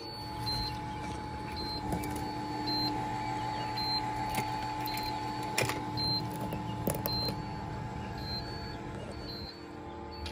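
Steady electric hum of a small motor, with a faint high tone that cuts in and out at an even pace and a few sharp clicks near the middle.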